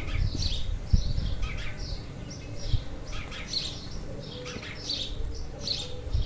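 Small songbirds chirping in quick, short notes over and over, with a low rumble underneath and a thump about a second in.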